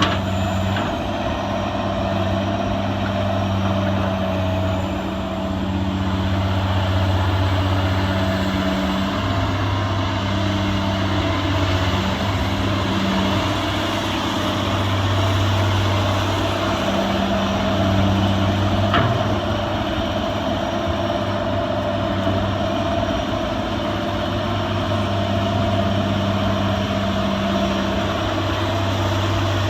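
Caterpillar 345CL hydraulic excavator's diesel engine running steadily.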